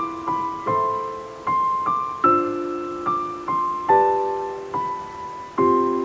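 Background solo piano music: a slow, gentle melody of single notes, about two a second, each ringing and fading over held lower chords.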